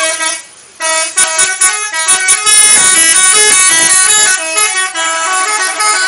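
Bus 'telolet' horn: a set of multi-tone electric horns playing a quick tune of stepped notes, starting about a second in. A rush of noise sits under the horn in the middle.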